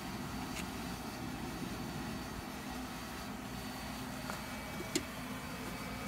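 Steady whir of the air blower forcing air into a backyard charcoal furnace, with a steady low hum throughout. A few light clicks break in, the sharpest about five seconds in.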